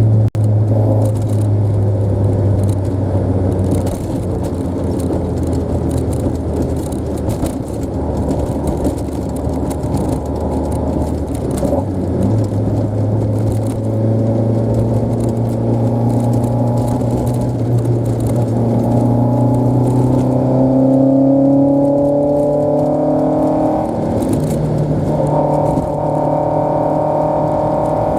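Toyota AE86 Corolla's four-cylinder engine running under way, its pitch rising slowly as it pulls through the revs, with a brief drop near the end before it climbs again.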